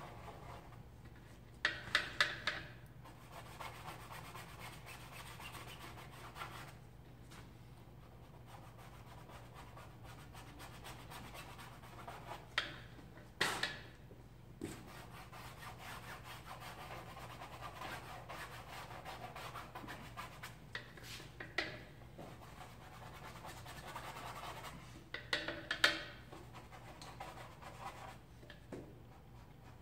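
Paintbrush rubbing and scratching across a canvas in soft strokes, with a few short, louder clusters of clicks and taps, over a steady low hum.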